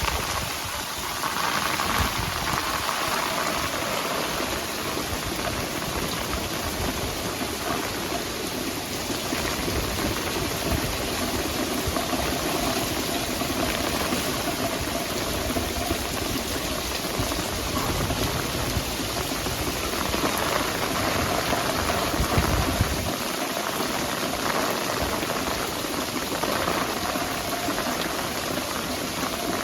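Heavy rain driven by strong storm winds, a steady rushing noise.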